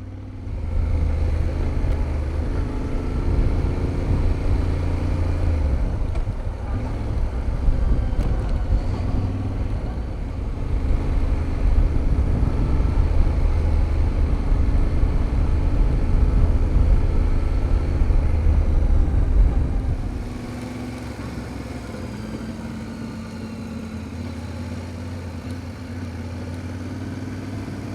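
Motorcycle engine and wind noise while riding, a steady low rumble that drops to a quieter level about two-thirds of the way through as the bike slows.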